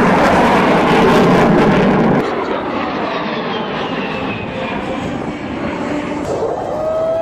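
Military jet roaring overhead, cut off abruptly about two seconds in. A quieter jet follows, an A-10 Thunderbolt II's turbofans, with a high whine falling slowly in pitch as it passes.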